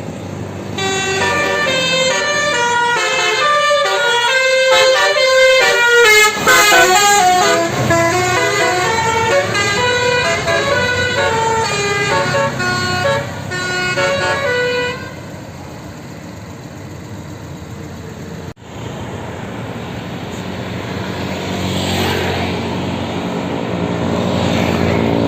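Basuri telolet bus air horn playing a quick melody of stepping notes for about fourteen seconds. Then it stops, leaving quieter bus traffic noise that grows louder near the end.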